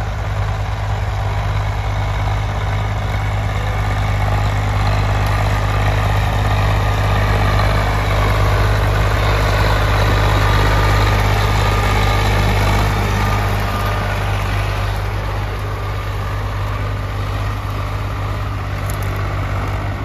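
Swaraj 855 tractor's three-cylinder diesel engine running steadily under load as it hauls a fully loaded 14x7 trolley. It grows louder as the tractor passes close about ten seconds in, then fades as it pulls away.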